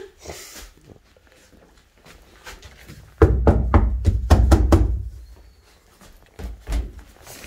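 A hand knocking and pressing on the wooden floorboards of a Japanese built-in closet. A cluster of loud, hollow thunks comes about three seconds in, and a few more near the end.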